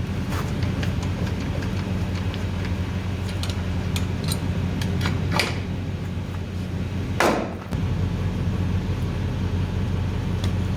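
A truck engine idling steadily, with scattered metallic clicks and knocks; the loudest knock comes about seven seconds in.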